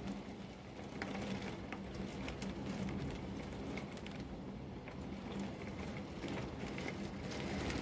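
Heavy thunderstorm downpour heard from behind a window: a steady wash of rain with many irregular sharp ticks of drops striking the glass.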